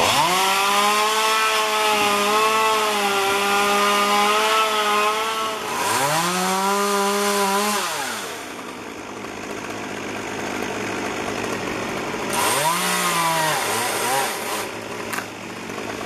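Chainsaw at full throttle cutting through the cherry trunk, dropping back to idle between cuts. It runs high for about six seconds, gives a shorter burst after that, idles, and revs once more briefly near the end.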